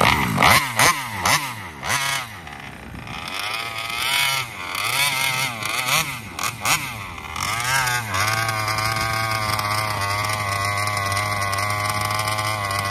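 Taylor 35cc reed-valve two-stroke engine in an RC car, blipped up and down in pitch several times with a few sharp pops, then held at a steady high pitch from a little past halfway. Its top end wavers with a flutter that the owner has not been able to tune out.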